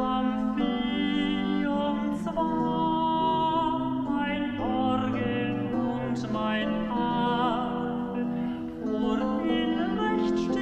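Slow music of long held notes, some with vibrato, moving to a new note every second or so.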